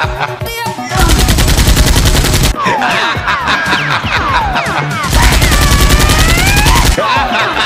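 Two bursts of rapid automatic machine-gun fire, a dubbed sound effect, the first about a second in and the second about five seconds in, each lasting around a second and a half. Between and around them, background music with falling swooping tones.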